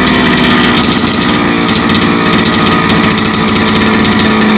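Grass-trimmer engine of about 28 cc running steadily at an even speed.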